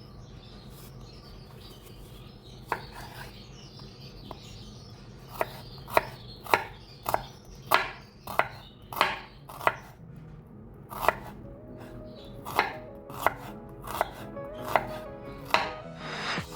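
Kitchen knife chopping vegetables on a cutting board: a few scattered cuts, then steady chops at about two a second.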